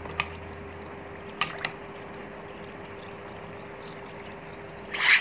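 Water trickling and bubbling in an open LPG reducer as gas keeps seeping through with the solenoid switched off: the kit is overflowing. A few light clicks come early, and a short, louder burst of noise comes near the end.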